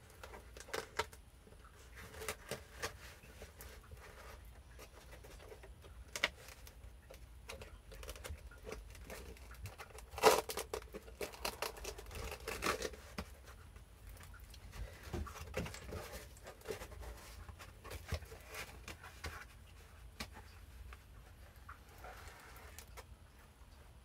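Handling noise from a dual-socket ASRock server motherboard being shifted about on anti-static foam: scattered light clicks and rustling, with one sharp knock about ten seconds in.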